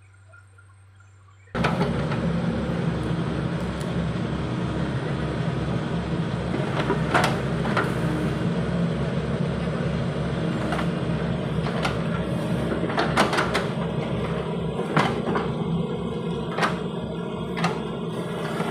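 Mini excavator's diesel engine running steadily, cutting in abruptly about a second and a half in, with several sharp clanks over it.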